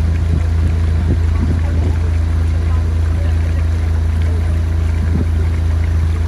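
Motorboat engine running steadily with a constant low hum, with the wash of water along the hull and wake, heard from on board.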